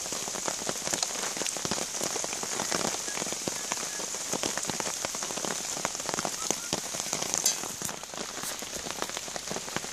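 Steady rain falling, with many separate drops striking throughout.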